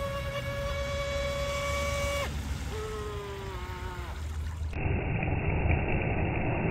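RC mono hull boat's brushless electric motor whining at a steady high pitch under throttle; about two seconds in the pitch drops sharply as the throttle comes off, and a lower whine slides slowly down. Near five seconds in the sound cuts abruptly to a duller rushing noise of the boat running through the water.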